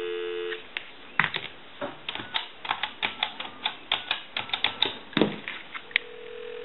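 Dial tone on a Western Electric Princess touch-tone telephone cuts off about half a second in. Then the keypad buttons click rapidly over several seconds as a number is dialled. Near the end a steady tone starts: the line ringing back.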